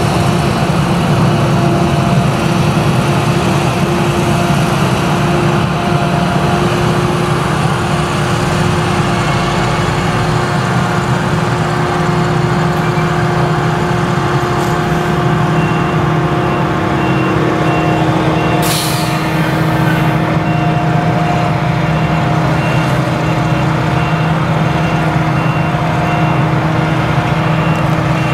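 Claas Jaguar 970 forage harvester with its MAN V8 engine running under load while chopping sorghum: a steady drone with a constant held tone. A brief hiss comes about two-thirds of the way in, and a high beep repeats at an even pace through the second half.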